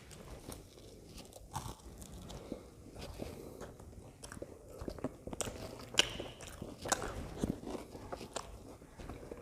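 Close-up chewing and mouth sounds of someone eating pav bhaji (soft buttered bread rolls with mashed vegetable curry), with irregular wet smacks and small clicks.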